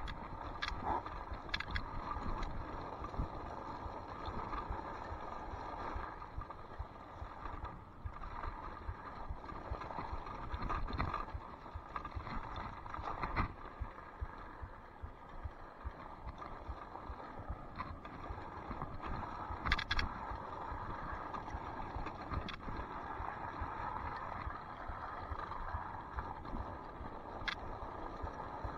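Off-road scooter rolling over a gravel-filled paving grid: a constant rumble and rattle from the tyres and frame on the rough surface, with a few sharp knocks from bumps.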